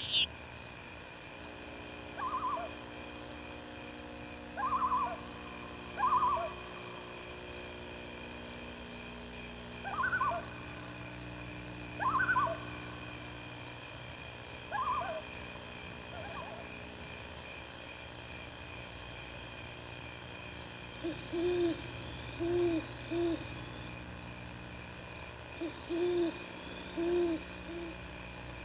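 An owl hooting: low hoots in short groups of two or three in the second half. Shorter, higher calls come every couple of seconds in the first half. Under it all is a steady high chirring of crickets.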